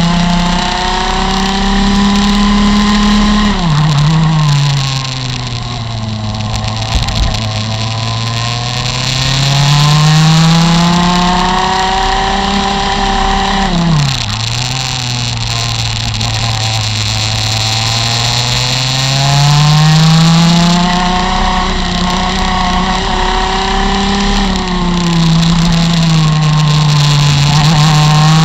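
Rotax MAX FR125 single-cylinder two-stroke kart engine at racing speed, heard on board the kart. The revs climb steadily along the straights and drop sharply twice, about four seconds in and again about fourteen seconds in, as the driver lifts for corners, and then build again.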